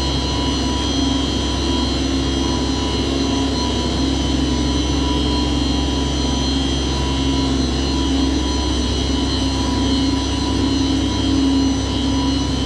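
Primary, secondary and condenser water pumps of an HVAC chiller plant running together: a steady loud machine drone with a deep hum and several steady high whining tones.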